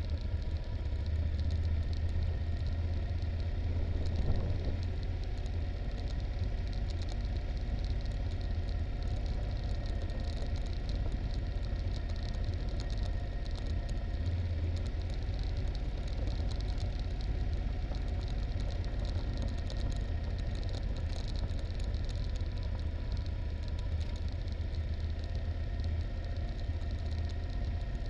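Yamaha Super Ténéré's parallel-twin engine running steadily at low speed on a descent, with tyres on a rough gravel track giving a constant patter of small knocks and rattles over a hiss of road and wind noise.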